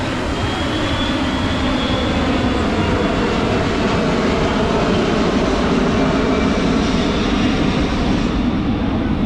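Jet engines of a large military transport or tanker aircraft passing overhead: a loud, steady rush of jet noise with a faint high whine, its high hiss dulling near the end.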